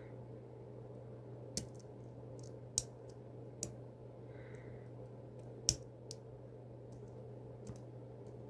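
Lock-picking tools working inside an EVVA 4KS lock cylinder: about six sharp, scattered clicks as the elements are probed and set, the loudest nearly six seconds in, over a steady low hum.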